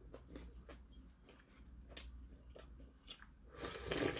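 Close-up mouth sounds of eating: quiet chewing with soft, scattered clicks, then near the end a louder, sustained slurp from a dish tipped up to the mouth.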